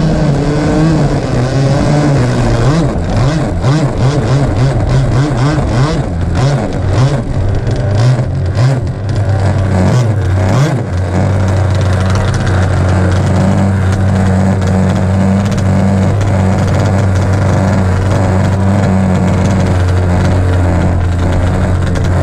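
Bonzi Sports 47 Skater RC boat's Zenoah two-stroke petrol engine, heard from on board, running unevenly off the throttle as the hull slows through choppy water with irregular splashing, then settling to a steady idle about eleven seconds in as the boat drifts to a stop.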